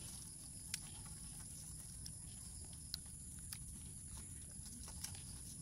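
Faint sticky clicks and squelches of fingers squeezing and kneading sucker-catfish roe mixed with honey in a bowl, a few sharp ticks spread through, over a steady faint high hiss.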